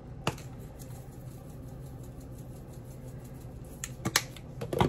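Sharp plastic clicks from a spice shaker being handled while seasoning shrimp: one click just after the start, then several more near the end, over a low steady hum.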